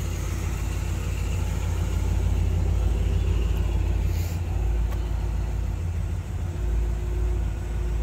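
The car's 350 V8 with dual exhaust idling steadily, a low even rumble.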